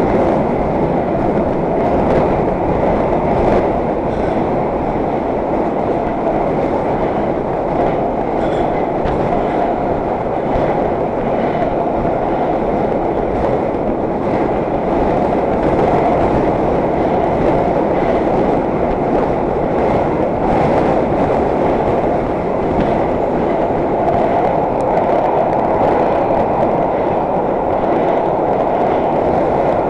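Vintage IRT Low-V subway car running at speed, heard from inside the car: a steady, loud rumble of wheels on rail with faint clicks over the rail joints.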